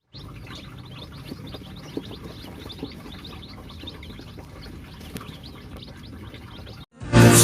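A flock of chicks peeping: many short, high chirps overlapping over a low hum. Loud music cuts in near the end.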